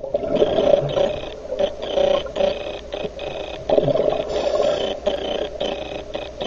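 Scuba diver's breathing through a regulator, heard underwater: a rumbling rush of exhaled bubbles that surges and eases, broken by many brief gaps.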